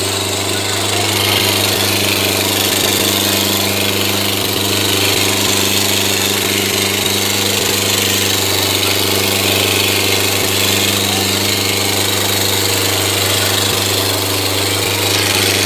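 Sonalika DI 750 III Sikander tractor's diesel engine running steadily under heavy load as it drags a sack-weighted disc harrow, a constant deep drone that neither rises nor falls.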